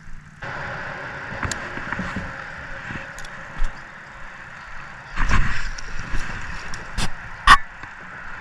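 Steady hum of a small electric trolling motor running on a jon boat, starting suddenly about half a second in, with a few sharp knocks in the boat, the loudest near the end.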